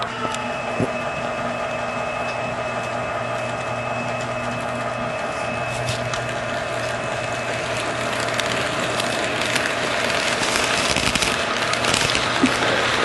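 HO-scale model train running on its track: a steady electric hum, then the rolling rattle and clicking of wheels on the rails growing louder from about eight seconds in as the cars pass close.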